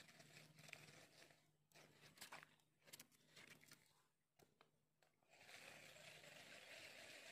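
Near silence: a few faint scrapes and clicks, then a soft steady hiss.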